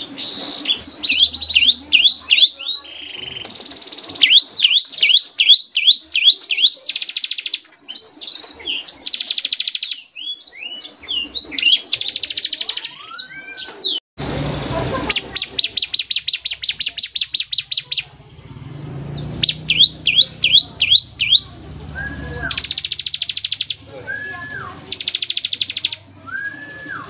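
Ciblek (bar-winged prinia) singing in fast bursts: runs of high, quickly repeated downslurred notes and rapid trills, phrase after phrase with short gaps. The song breaks off sharply about halfway through, then resumes.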